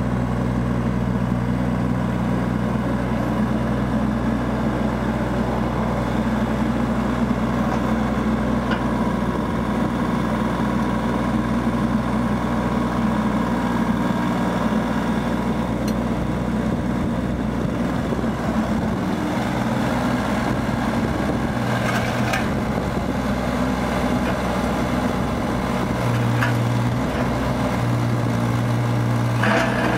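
JCB 8014 CTS mini excavator's diesel engine running steadily. In the second half a deeper hum comes in and drops out twice, and a couple of short clicks are heard near the end.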